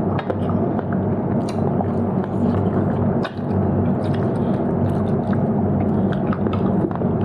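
Someone eating: chewing and short scattered clicks of bites and utensils over a steady low hum.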